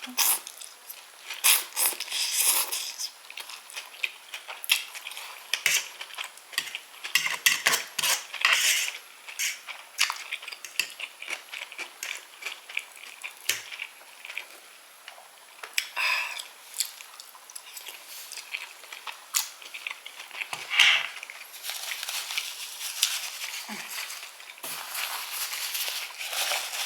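Close-up eating sounds of a person eating baked scallops: wet chewing and mouth smacks, with irregular sharp clicks of cutlery against a plate.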